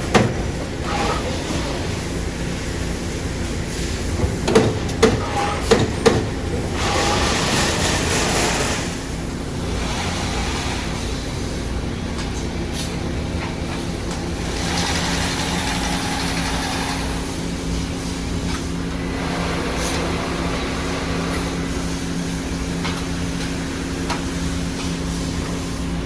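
Amada Vipros 357 CNC turret punch press running. A few punch strokes land about half a second apart, followed by the hiss of compressed air and a steady hum with a held tone. Further air hisses come and go over the hum.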